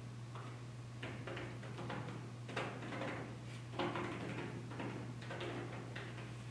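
Fingers tapping and rustling the clear plastic canopy of an umbrella, a string of light taps with two louder knocks about two and a half and four seconds in; the taps set off piezo vibration sensors on the panels that switch its LEDs on. A steady low hum runs underneath.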